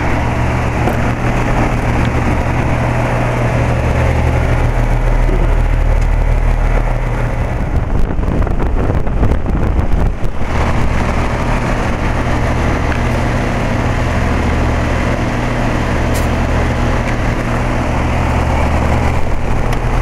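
2007 Carrier central air-conditioner condensing units running, their Copeland scroll compressors and condenser fans giving a steady hum and an even rush of air. About eight seconds in, a rougher, louder stretch of rumble lasts a couple of seconds.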